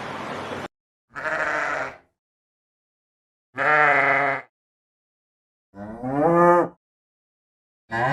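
Sheep bleating: three separate calls about two seconds apart, each lasting just under a second, the third rising in pitch, with a fourth call starting at the very end. A noisy sound cuts off abruptly just before the first call.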